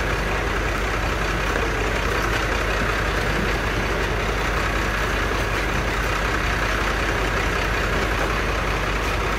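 Daewoo BH120F coach's diesel engine idling steadily.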